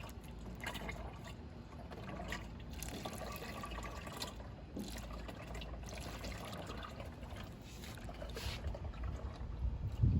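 Motor oil being poured through a homemade milk-jug funnel, trickling steadily, with a low bump near the end.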